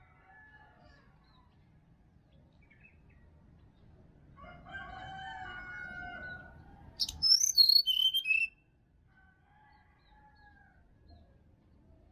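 A brown-chested jungle flycatcher sings a short phrase of clear whistled notes stepping down in pitch, the loudest sound here, about seven seconds in. Just before it a rooster crows once for about two seconds, and faint calls of other birds run underneath.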